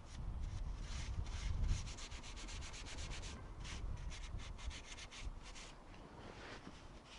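Quick, rough rubbing and scraping strokes from hands and tools working at the rear brake caliper's bleed nipple as the bleed is closed off, over a low rumble that fades after the first two seconds.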